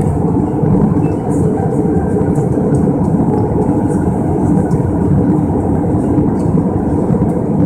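Steady cabin noise inside an Airbus A320 in flight: a low, even rumble of engine and airflow noise with a faint steady hum.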